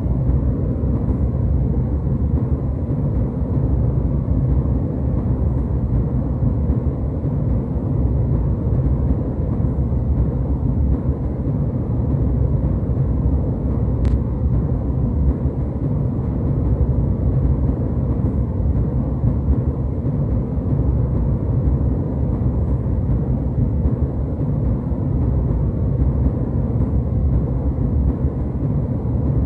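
Steady, deep rumble of an airliner cabin in flight, the jet engines and airflow making an even low roar. A faint tick about fourteen seconds in.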